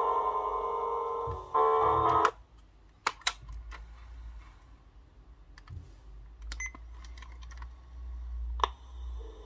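Bible 100 cassette player's speaker dock playing steady musical tones that cut off about two seconds in. A series of sharp clicks from its buttons and mechanism follows, with a faint short beep. The tones start again at the very end.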